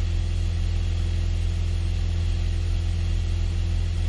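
Piper PA-28-161 Warrior's Lycoming O-320 four-cylinder engine and propeller droning steadily in flight, heard inside the cabin.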